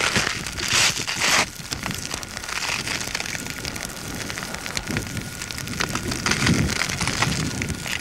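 Crackling and hissing from an active lava flow as molten lava toes push out of their cooling crust, with a rush of hiss about a second in and a low rumble around six to seven seconds. A faint steady high whine sits underneath.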